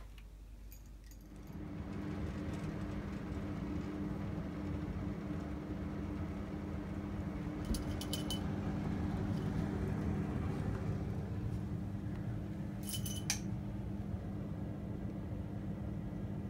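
A steady low machine hum starts suddenly about a second and a half in and runs on evenly. Short light metallic jingles come twice, near the middle and later on.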